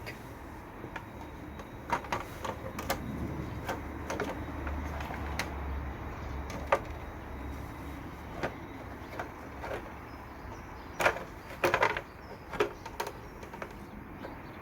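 Plastic seat cowling of a motorcycle being handled and pushed into place: scattered light knocks and clicks, with a quick cluster of sharper clicks about eleven seconds in as the lugs hook in.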